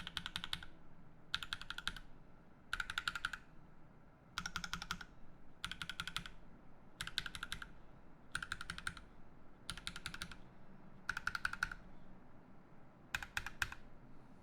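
Mechanical keyboard (Matrix Noah, aluminium plate, lubed Seal switches, GMK ASCII keycaps) being typed on in short quick flurries of keystrokes, about ten flurries with brief pauses between.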